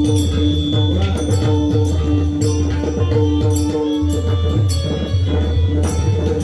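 Marathi devotional bhajan music: long held melody notes over a low drum pattern, with regular sharp metallic strikes.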